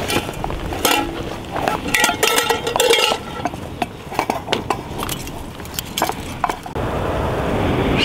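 A spoon clinking and scraping against a pan, stirring mushrooms as they cook over a campfire, in irregular short knocks.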